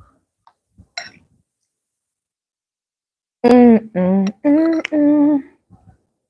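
A woman's voice humming a short tune of four held notes, about three seconds in, after a faint click.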